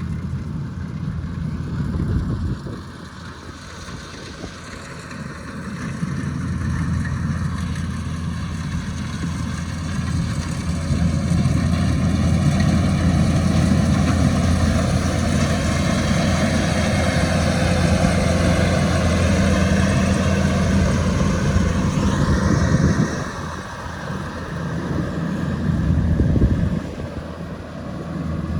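Rice harvesting machine's engine running under load. It builds up a few seconds in, holds steady, then eases off twice near the end.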